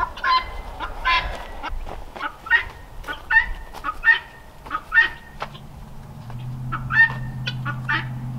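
Domestic fowl calling over and over in short calls. A steady low hum comes in about five seconds in.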